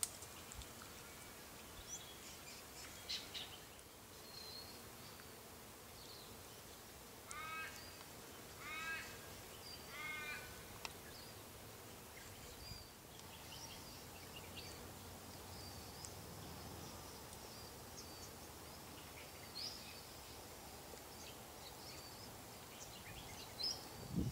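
Australian raven calling three times, a little over a second apart, with faint high chirps of small birds around it.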